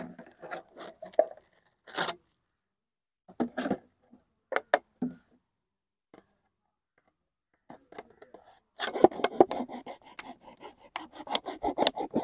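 Knife scraping and sawing at a plastic drink bottle, the thin plastic crackling under it; the bottle is too tough for the knife to cut through. Scattered short scrapes at first, then several seconds of rapid, continuous scraping near the end.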